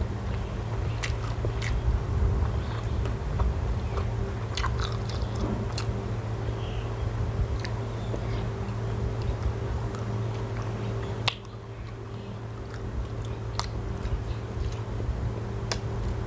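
A person chewing and biting food close to the microphone, with scattered short crunches, over a steady low hum. A sharp click about eleven seconds in, after which the background is a little quieter.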